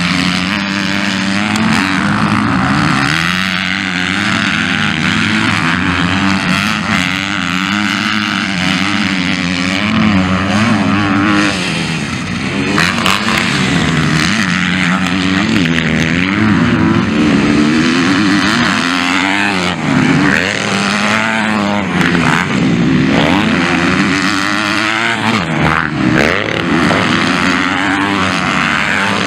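Several MX2-class motocross bikes racing on a dirt track, their engines revving up and down as riders accelerate, shift and back off, with bikes passing near and far without a break.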